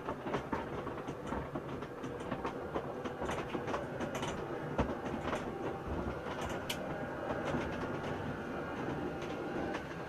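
Motorized garage door closing: the door runs steadily along its tracks with a continuous rattle and clatter, set going by the Piface relay pressing the door remote.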